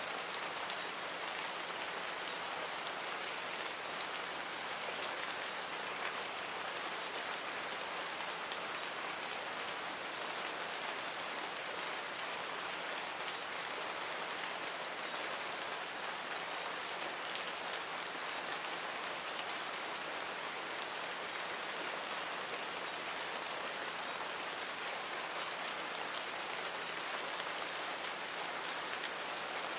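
Steady rain falling, an even hiss with scattered individual drops ticking on a surface and one sharper drip about seventeen seconds in.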